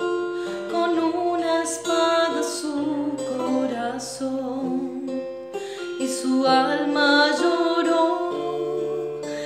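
A woman singing with guitar accompaniment, holding long notes.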